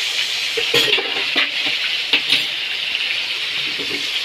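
A whole fish sizzling as it fries in hot oil in a wok, a steady hiss. Several knocks and clinks of utensils or crockery against the pan come between about one and two and a half seconds in.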